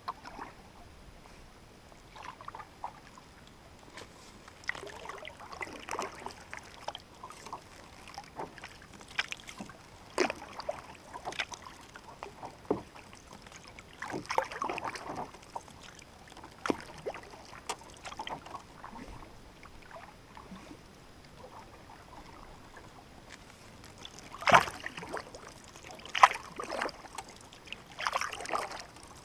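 Canoe being paddled on calm water: irregular paddle splashes and water gurgling and dripping around the hull every second or two, with a few sharp knocks. The splashes are loudest near the end.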